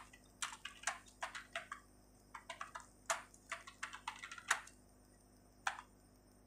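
Typing on a computer keyboard: quick, uneven key clicks for about four and a half seconds, then a pause and a single keystroke near the end.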